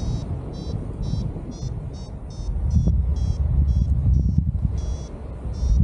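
Wind rushing over the microphone in flight, with a paragliding variometer beeping in short, evenly spaced high beeps about twice a second: the climb tone of a vario sounding in rising air while ridge soaring.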